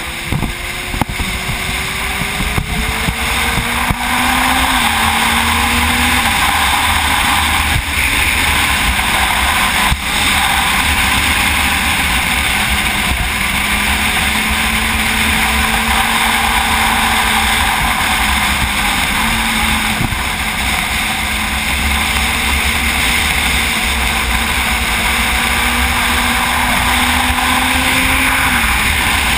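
Sport motorcycle engine pulling steadily at road speed, its pitch climbing slowly and stepping several times with gear changes, under a heavy rush of wind.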